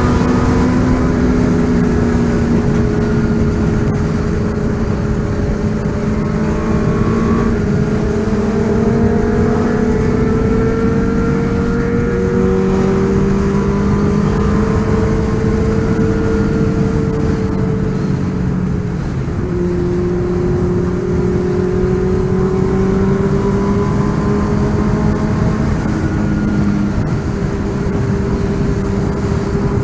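Car engine running while driving, a steady drone whose pitch drifts slowly up and down with the revs and shifts a few times.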